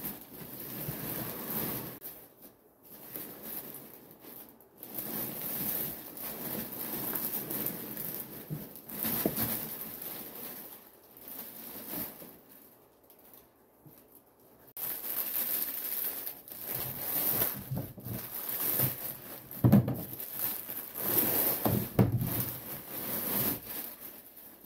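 A plastic bag crinkling and foam packing peanuts rustling and spilling as a heavy silicone mermaid tail in its bag is pulled out of a cardboard box. It comes in uneven bursts with short pauses, with a few dull thumps in the later part as the tail is handled on a table.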